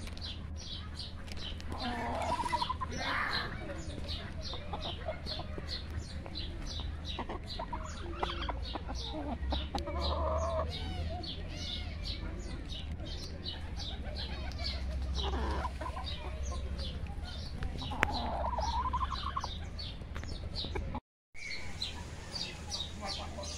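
Roosters clucking, with several drawn-out calls at intervals, over a rapid high chirping repeated about three times a second.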